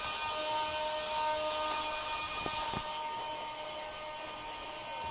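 Small electric motors, the InMoov robot's servos, giving a steady whine over hiss, with two light clicks about halfway through.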